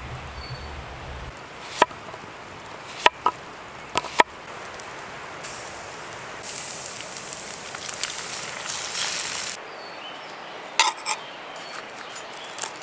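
A handful of sharp clicks or knocks, several of them in quick pairs, over a steady hiss, which grows brighter for a few seconds midway.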